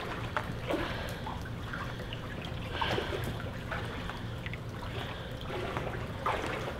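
Floodwater splashing and trickling in small, irregular splashes as a person wades through shin-deep water, over a steady low rumble.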